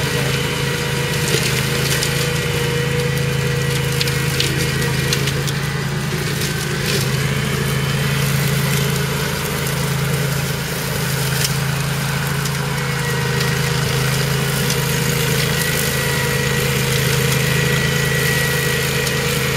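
OREC Rabbit Mower RM951 ride-on slope mower's engine running steadily under load on a steep slope while its blades cut through long grass and brush. A few short crackles come from about four to seven seconds in.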